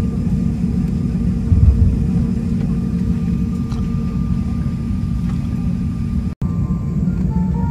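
Steady low rumble of cabin noise inside an Airbus A350-900 airliner on the ground, with one thump about a second and a half in. The sound cuts out for a moment a little after six seconds.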